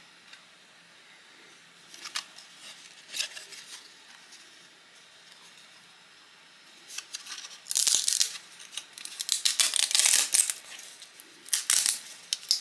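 Irregular bursts of rustling, scratchy noise: a couple of short ones, then a longer, louder run about seven to ten seconds in and another near the end.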